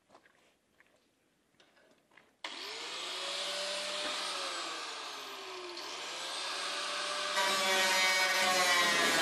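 After a couple of seconds of faint handling clicks, an angle grinder starts suddenly and cuts into the spreader's steel. Its whine sags as the disc bites and picks up again, growing louder near the end.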